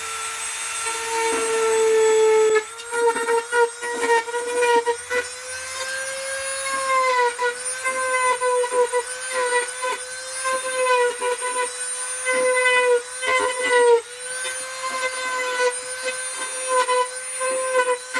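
Dremel rotary tool running at high speed with a steady whine, grinding out small plastic-emblem rivets; from a few seconds in, its pitch sags and recovers under load, with scratchy grinding noises as the bit bites.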